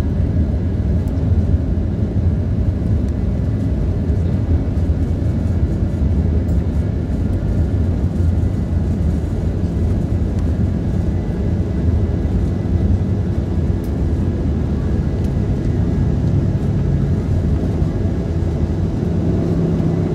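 Boeing 737-800's CFM56-7B jet engines at takeoff thrust, heard inside the cabin during the takeoff roll: a loud, steady low roar mixed with runway rumble.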